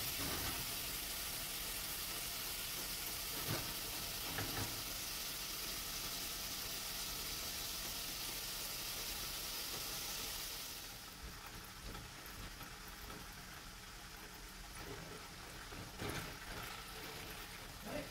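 Diced tempe sizzling in hot oil in a frying pan, with a few knocks and scrapes of a slotted spoon and spatula against the pan. The sizzle drops off about eleven seconds in, leaving occasional utensil clicks.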